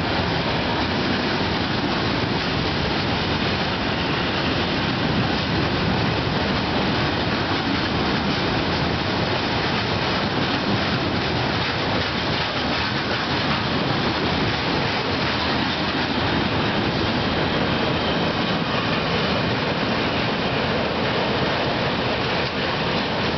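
Freight train of flat wagons loaded with steel rails passing through, a steady, unbroken noise of wheels running on the track.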